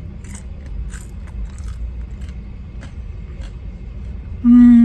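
Close-up mouth sounds of someone chewing crispy fries, with small irregular crunches over a steady low rumble. Near the end comes a loud hummed "mmm" that falls in pitch.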